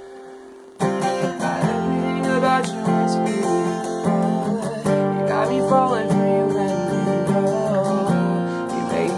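Acoustic guitar: a chord rings out and fades, then strumming starts again about a second in and carries on through a run of chords.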